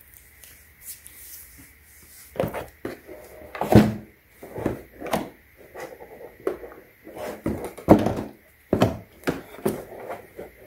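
Irregular knocks and clacks as a plastic-bodied electric pole saw is handled and shifted on its cardboard box, with the loudest knocks about 4 and 8 seconds in.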